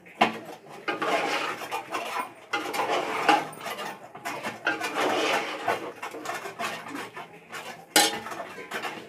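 Metal spoon scraping and clinking against the sides of a metal pot as fish pieces are stirred through thick masala, in a run of busy clatter, with one sharp knock about eight seconds in.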